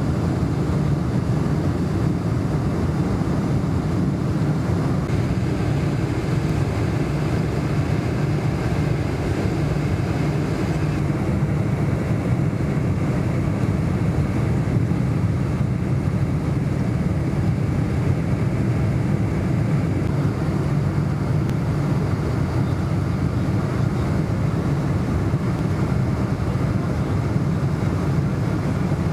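Steady cabin noise of a Boeing 747 in flight: a constant low rumble of engines and airflow.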